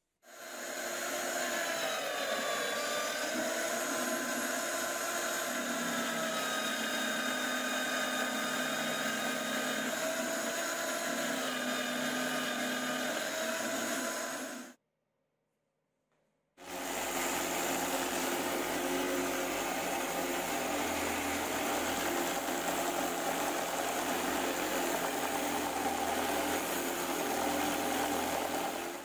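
An electric power tool runs for about 14 seconds while cutting plywood, its pitch dipping and shifting as it takes load, then stops. After a two-second pause a belt grinder starts and runs steadily as a round plywood disc is sanded against its belt.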